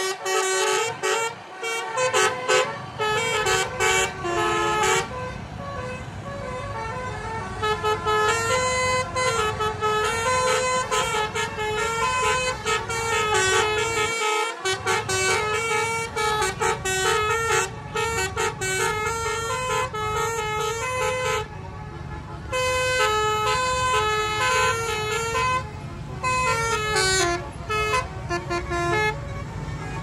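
A tour bus's 'telolet basuri' musical horn playing a tune in quick stepped notes, almost without pause, over the low running of bus and motorbike engines.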